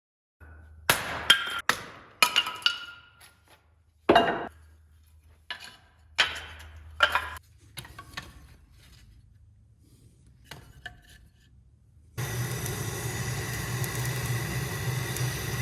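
Metal tools and hardware clinking and knocking, with several sharp strikes that ring briefly. About twelve seconds in, a steady noise with a low hum begins and continues to the end.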